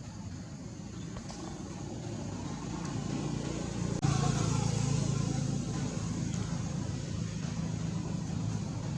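A motor vehicle's engine running with a steady low hum. It grows louder, with a sudden step up about four seconds in.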